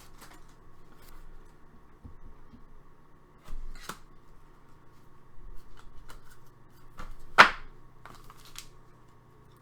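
Hockey trading cards being handled and sorted by hand, with scattered light taps and rustles and one sharper snap about seven seconds in.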